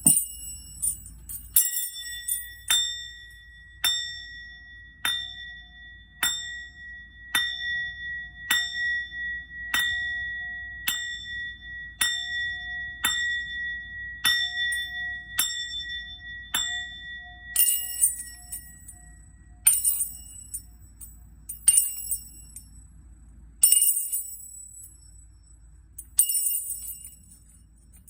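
A small ritual bell struck about once a second, each strike ringing on in clear sustained tones. About two thirds of the way in the strikes give way to shaken jingling bells, every couple of seconds.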